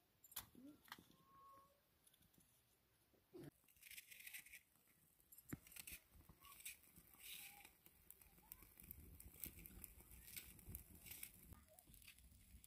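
Faint knife cuts and scrapes as a potato is sliced by hand over a metal bowl, with scattered sharp clicks from dry sticks being handled.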